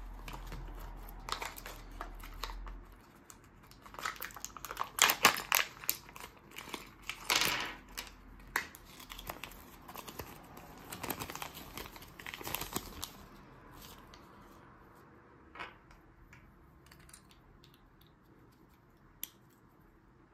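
Paper crinkling and rustling as a small folded paper leaflet from a Kinder Surprise egg is handled and unfolded by hand. It comes as a run of sharp crackles, loudest about five to eight seconds in, that thins to a few faint clicks after about thirteen seconds.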